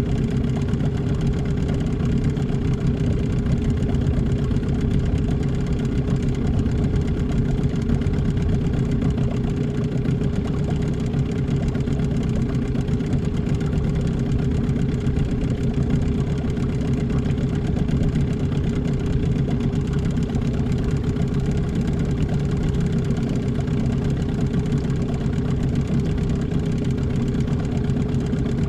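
Boat outboard motor running steadily at an even pitch, holding a constant slow speed as when trolling.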